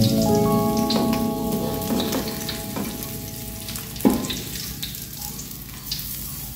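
Fish frying in sauce, sizzling in an aluminium wok, with a metal spatula scraping and scooping against the pan and a sharp knock about four seconds in. The sizzle grows quieter as the pieces are lifted out.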